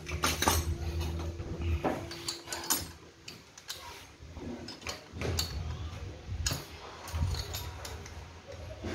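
Scattered clicks, knocks and scrapes of metal parts being handled on a partly stripped Stihl 070 chainsaw. A low hum runs under them, dropping away for a few seconds in the middle.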